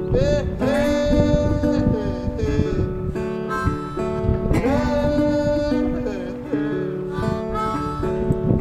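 Background music led by guitar, with some bending notes and a phrase that repeats about every four seconds.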